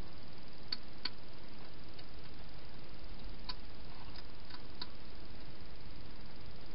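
Wild hedgehog eating from a dish: a handful of small, irregular clicks in the first five seconds over a steady hiss.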